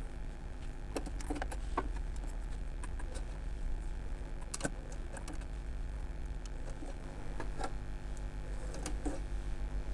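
Scattered light clicks and taps of hands working on a Royal 202 typewriter's drawband, unwinding the old cord from the drawband spring's shaft, over a steady low hum.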